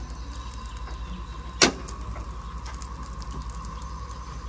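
Propane camp stove burner running with a steady low fluttering rumble and a faint steady whistle, with one sharp click about a second and a half in.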